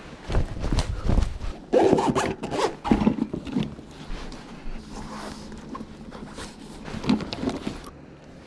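Zipper on a bag being pulled in quick rasping strokes, with rustling as things are packed; the strokes come in clusters in the first half and again near the end.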